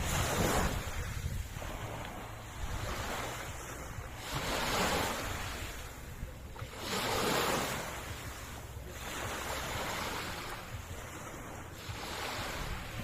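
Sea waves washing onto the shore, a new surge of surf about every two to three seconds.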